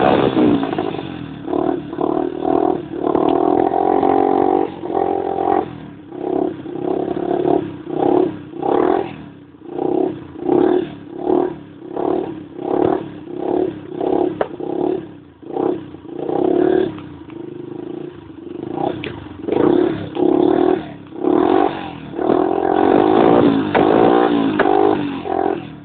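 Yamaha YBR motorcycle's single-cylinder engine revved over and over through its exhaust: quick throttle blips about once a second, each rising and falling, a few longer held revs near the start and end, and a short spell of steadier idle about two-thirds of the way in.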